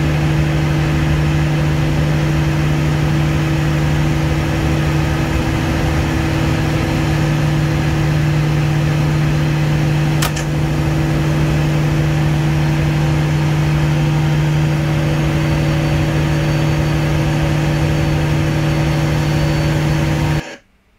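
Generator sets running loudly and steadily in the genset room. About halfway through comes one sharp click: the generator circuit breaker closing as G508 reaches synchronism with G507.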